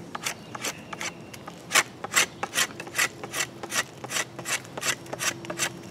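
Dark Timber Bushcrafter knife scraping and shaving bark and knots off a green maple stick in repeated strokes. The strokes are faint at first and become stronger and regular, about two to three a second, from about two seconds in.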